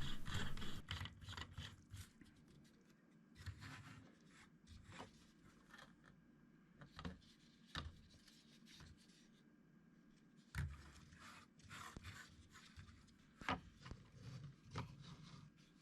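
Small 3D-printed plastic pieces being handled and fitted together: faint, irregular clicks, taps and short scrapes, with a few sharper clicks, the loudest about ten and a half and thirteen and a half seconds in.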